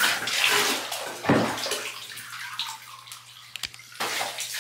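Water splashing in a bathtub as a small dog is washed and rinsed by hand, with a sudden surge about a second in and louder splashing again near the end.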